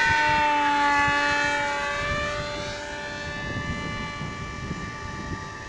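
Electric RC F-16 model jet's motor whining as the plane flies past, its pitch dipping slightly in the first second and then holding while the sound fades as it moves away.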